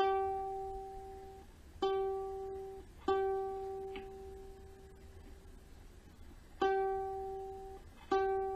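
Kala Ukadelic soprano ukulele: one string plucked five times, each note ringing about a second at the same pitch before fading or being stopped. The string is being retuned because the new strings keep slipping out of tune.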